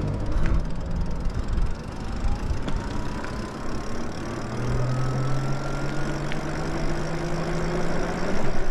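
Lyric Graffiti electric moped-style e-bike under way, with a steady rumble of wind and road noise. About two seconds in, the electric motor's whine begins to rise in pitch as the bike speeds up, and it fades out after a few seconds.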